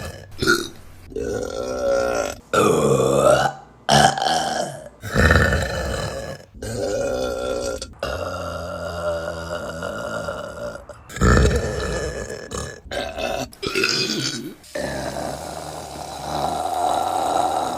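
Women burping, one clip after another: a string of separate burps with abrupt cuts between them. Some are short, and two are long, drawn-out belches, one in the middle and one near the end.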